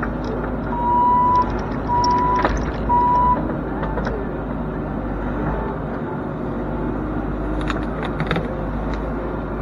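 Bobcat E42 mini excavator's diesel engine running steadily while the arm works, with three loud, even beeps about a second apart near the start. Scattered sharp snaps come as the bucket and thumb break through brush and sticks.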